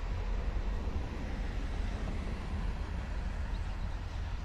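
Long freight train of covered hopper cars rolling past at a distance: a steady rumble with a heavy low end.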